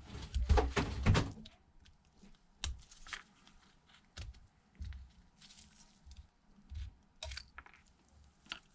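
Small clicks and taps of a smartphone's SIM tray being ejected and handled on the workbench, with a cluster of louder clicks about half a second to a second in, then single scattered clicks.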